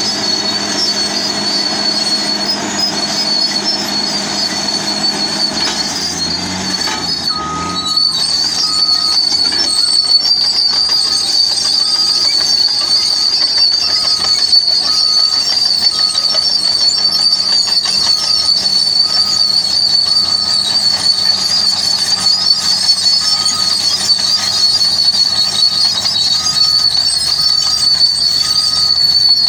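Large crawler bulldozer working, its diesel engine running under a steady high-pitched squeal. About seven seconds in, a backup alarm starts beeping slowly and evenly.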